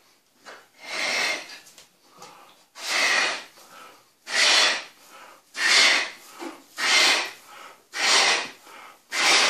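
A man blowing up a rubber balloon by mouth: seven hard puffs of breath into the balloon, about one every one to two seconds and coming quicker towards the end, with short breaths drawn in between.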